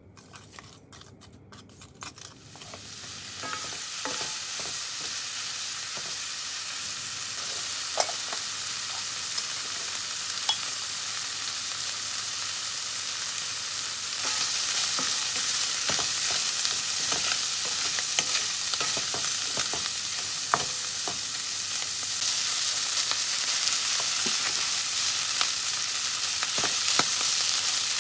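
Bacon and corn kernels sizzling in sesame oil in a frying pan, the hiss building up over the first few seconds and growing louder about halfway through. Occasional sharp clicks sound over it.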